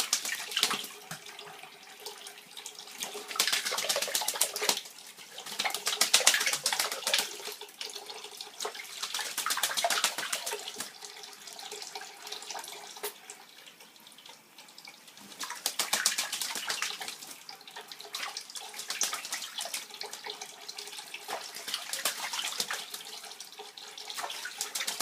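A pet bird splashing in bath water, in repeated bursts of rapid splashing a few seconds long with quieter stretches between, over the steady sound of running water.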